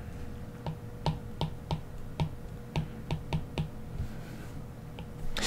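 Stylus tip tapping on a tablet screen while handwriting: about a dozen light, uneven clicks.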